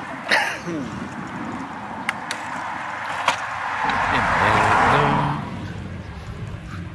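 A motor vehicle passes close by. Its engine and tyre noise swells to a peak about four to five seconds in, then fades, with a few sharp clicks before it.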